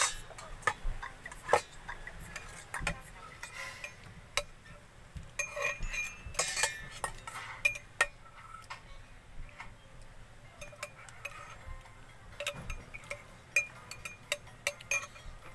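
A metal spoon and cup clinking against a stainless steel bowl: irregular light clinks and taps, some with a short metallic ring, as a cup of milk is handled and stirred.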